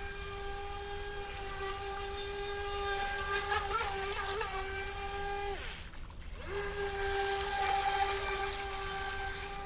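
Brushless electric motor of a DEERC RC speedboat running flat out with a steady high whine. A little past halfway its pitch slides down and cuts out for about a second, then climbs back and holds.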